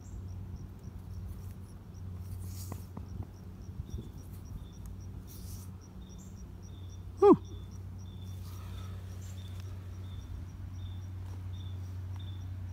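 Insects, likely crickets, chirping in a steady repeating rhythm of short high chirps over a low steady hum. A single short, loud call falls in pitch about seven seconds in.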